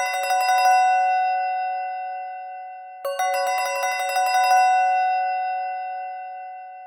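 A Palm Pre ringtone played as a MIDI rendition in MidRadio: a quick run of bell-like chime notes over sustained tones that slowly fade, the phrase starting over about three seconds in.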